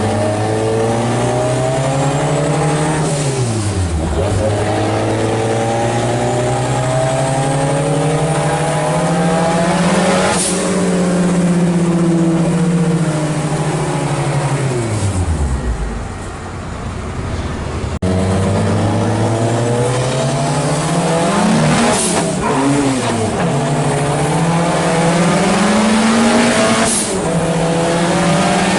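Race car engine driven hard, its pitch climbing through the revs and falling back again and again as it shifts and brakes, with two deep drops in revs about four seconds in and about sixteen seconds in.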